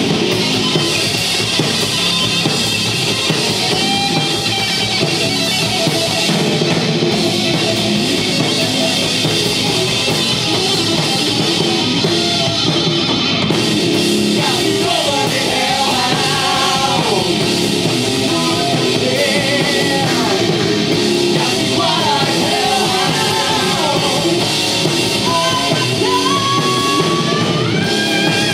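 Live metal band playing loud: electric guitar, bass and drum kit, with a singer's voice over them.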